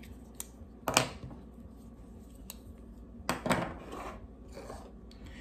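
Folding pocketknives being picked up, handled and set down on a wooden table, giving scattered metallic clicks and knocks. The sharpest knock is about a second in, with a quick cluster of clacks about three and a half seconds in.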